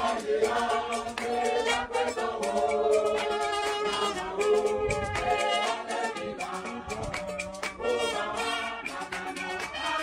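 Background music with singing and a regular beat.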